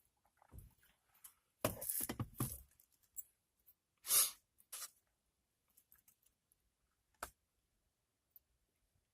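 Handling and eating noises close to the microphone: a cluster of crackly rustles and knocks, then two shorter rustles, and a single sharp click later on.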